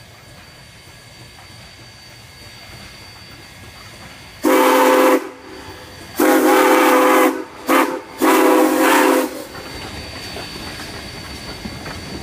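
Denver & Rio Grande Western No. 464, a narrow-gauge K-27 Mikado steam locomotive, sounds its chime whistle four times, long, long, short, long: the grade-crossing signal. Around the blasts, the locomotive and its wooden coaches rumble past on the rails, growing louder as they near.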